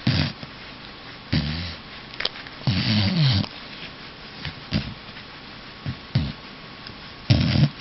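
A dog making a series of short vocal noises, about six separate bursts, some with a bending, falling pitch and some breathy and noisy; the longest comes about three seconds in.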